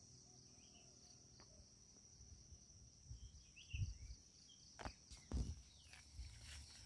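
Steady high-pitched chorus of crickets or similar insects, with footsteps and rustling through dry leaf litter as someone walks, a few soft thuds from about three seconds in.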